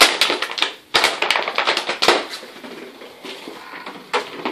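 Plastic water bottle crackling and clicking as a puppy plays with it, in dense bursts that ease off in the middle and pick up again near the end.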